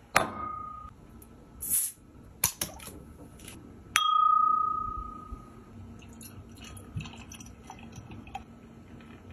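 An empty stemmed beer glass tapped with a finger: a sharp click and a clear ringing tone that fades over about a second and a half, after a lighter ring near the start. Later, rosé beer poured into the glass with faint fizzing crackle.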